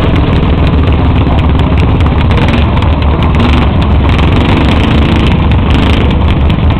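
Modified garden pulling tractor's engine running loud and steady under load as it drags a weight-transfer sled.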